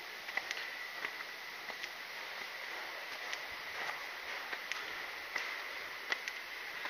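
Forest trail ambience: a steady hiss with a faint, steady high tone, and scattered light ticks and taps at irregular intervals.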